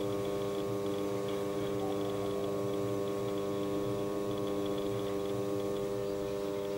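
Electric potter's wheel running with a steady electrical hum made of several even tones.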